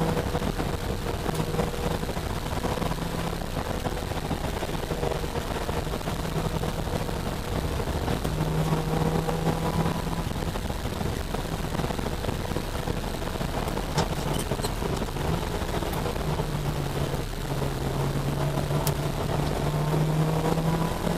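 Citroën Saxo VTS engine heard from inside the cabin while driven hard around a track. Its pitch climbs and falls with throttle and gear changes, over steady road and wind rush, with a couple of brief clicks or knocks in the second half.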